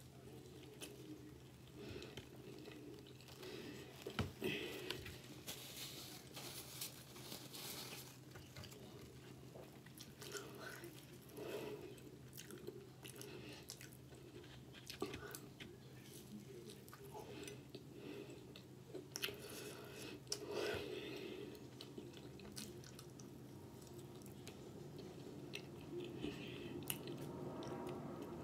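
Close-miked chewing and biting of fried onion rings and a grilled roast beef and cheese sandwich, with scattered short crunches.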